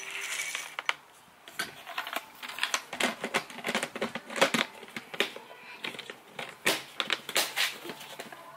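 Pellets rattle from a scoop into a ceramic feed bowl at the start. Then comes a lop-eared pet rabbit crunching its feed pellets, a rapid, uneven run of small crunches.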